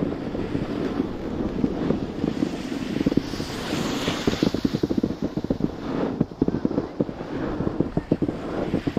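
Wind buffeting the microphone while skiing downhill: a steady rumble full of rapid crackles, with a brief higher hiss about three to four seconds in.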